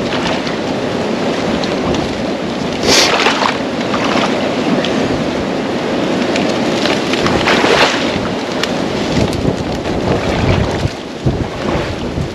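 Wind buffeting the microphone, with water sloshing and dry cattail stalks rustling as a person wades through a shallow marsh; the noise swells a few times, about three seconds in and again near eight seconds.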